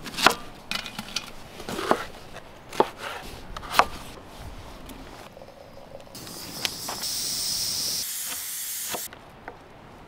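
Knife chopping an onion on a wooden cutting board: sharp knocks of the blade on the board, about one a second, over the first four seconds. Then a steady hiss of water pouring from a samovar tap into a glass teapot, cutting off suddenly about nine seconds in.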